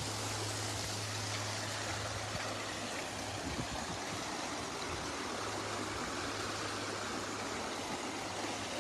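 Steady rushing of floodwater, an even wash of water noise, with a steady low hum underneath that drops out about three and a half seconds in and returns a second and a half later.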